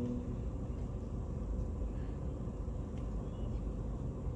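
Steady low rumble of a parked car's cabin, with no distinct event standing out.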